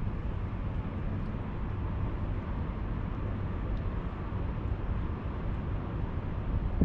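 Steady low rumble of wind buffeting the microphone outdoors, with no separate events.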